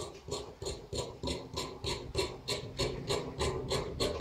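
Large tailor's shears cutting through white cloth on a wooden table, in quick, even snips of about four a second.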